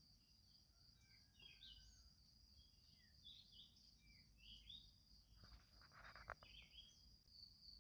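Near silence, with faint, scattered bird chirps and a faint steady high-pitched tone.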